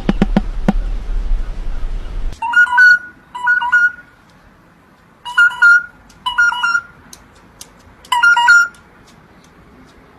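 A phone-style ring: a warbling two-note trill that sounds in short rings, mostly two at a time, with pauses between. Before it comes a fast rattle of clicks that cuts off about two seconds in.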